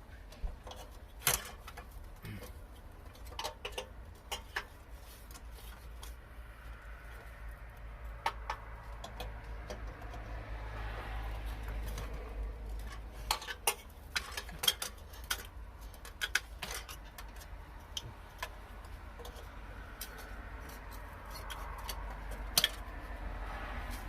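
Scattered sharp metallic clicks and taps of hand tools against the metal parts of an exterior light fixture as its screws and pieces are worked loose, over a low steady rumble.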